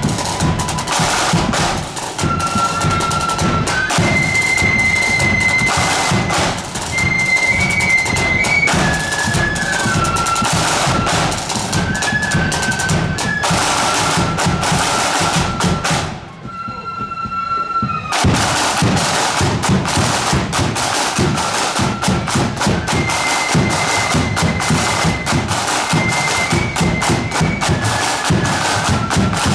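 Flute band playing a march: flutes carry a high melody over snare and bass drums. About sixteen seconds in, the drums drop out for a couple of seconds, leaving the flutes alone, then come back in.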